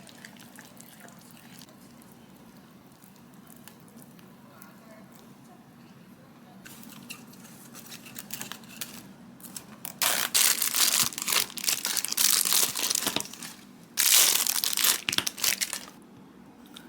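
Crinkling and rustling of some crinkly material being handled, with faint light rustles at first, then two loud stretches of crinkling, one about ten seconds in and a shorter one after a brief pause.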